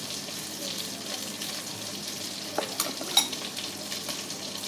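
Food sizzling and crackling steadily, with a few sharp clinks of a utensil against cookware about halfway through.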